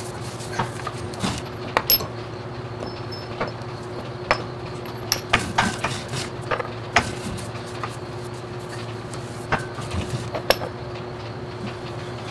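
Irregular metal clinks and taps of steel sockets and the bar handle on a hand-turned screw press, used to push rubber strut rod bushings into place, with a short ring after some of the clinks. A steady low hum runs underneath.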